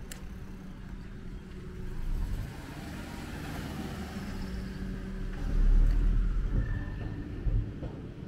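Street traffic: a motor vehicle's engine passing close, with a low rumble that is loudest a little past halfway through.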